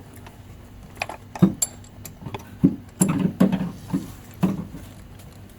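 Irregular metallic clinks and knocks of hand tools and parts being handled on an engine, about half a dozen sharp hits with a cluster around the middle.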